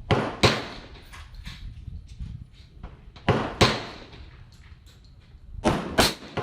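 Gunshots at a shooting range: several sharp reports in pairs about a third of a second apart, with a short echoing tail after each. The pairs come near the start, about three seconds in and near the end.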